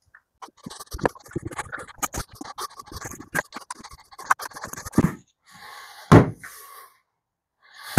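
Small T10 Torx screwdriver working the screws in the plastic case of a Greenworks 82V Optimus battery pack: a run of quick clicks and scrapes. Just after six seconds there is a single loud thump as the battery is laid on its side on the wooden workbench.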